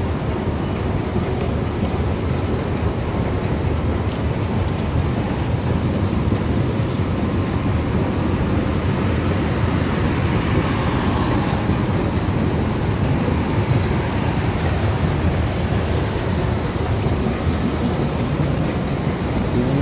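Steady low rumble of a New York City subway train running in the station, heard as an even, continuous noise.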